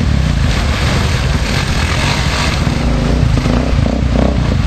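Dirt bike engines running at low speed as the bikes pick their way over boulders and through shallow water in a rocky creek bed.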